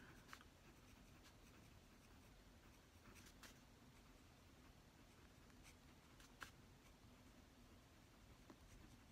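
Pen writing on a thin Bible page, faint, with a few soft ticks of the pen tip against the paper.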